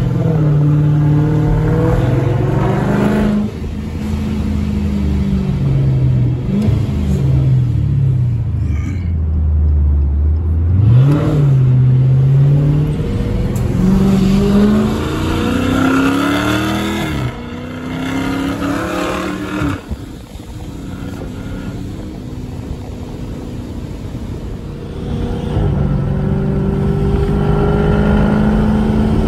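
Car engine heard from inside the cabin, its revs climbing and dropping several times as it shifts through the gears, easing off in the second half and pulling steadily again near the end.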